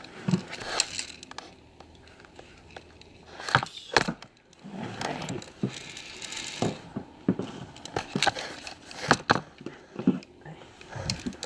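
Scattered clicks, knocks and rustling from close handling noise, with no steady sound between them.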